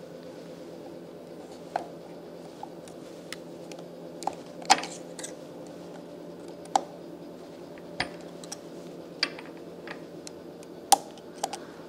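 Sharp metallic clicks and clinks of snap-ring pliers and a steel snap ring being worked onto a gearbox shaft, about a dozen at irregular intervals, over a steady low hum.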